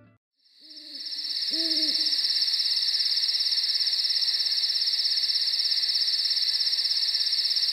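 Night-time wildlife sound effect: a loud, steady, high insect trill that pulses rapidly, fading in over the first second, with two short low hoots about one and two seconds in.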